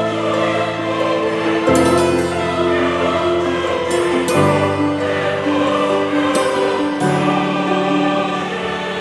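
Background music: sustained choral chords that change every two to three seconds.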